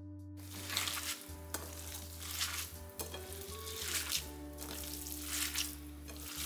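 Minced chicken with garlic and soaked lupin grits sizzling in a frying pan, starting about half a second in. The sizzle swells about once a second as the mixture is stirred.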